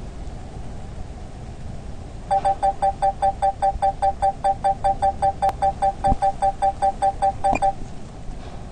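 Rapid electronic beeping, about five short beeps a second on two steady pitches sounding together, starting about two seconds in and stopping about five seconds later, over a steady low rushing noise.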